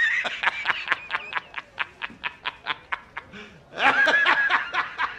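A man laughing hard: a loud, high, drawn-out shriek of laughter breaks into rapid "ha-ha" pulses, about five a second. A second shriek comes about four seconds in.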